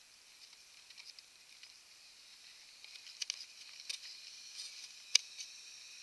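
Faint scattered clicks and rustles of a small action camera being handled and turned, over a thin steady hiss, with one sharp click about five seconds in.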